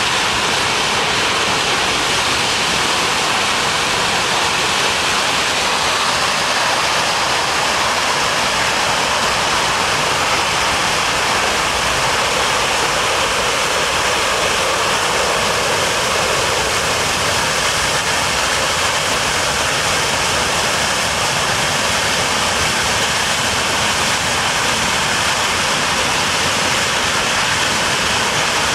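Turbofan engines of a Boeing C-17 Globemaster III running as it taxis past at close range: a loud, steady rushing jet noise with a faint high whine.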